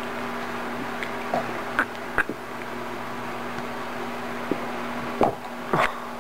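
A few short knocks and scuffs from a hand and a cat tussling on carpet, the loudest two near the end, over a steady low hum.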